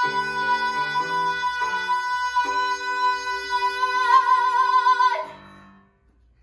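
A young woman's voice holding the song's final high note, with vibrato near its end, over a backing track whose chords change underneath. Voice and accompaniment stop together about five seconds in, leaving a short fading ring.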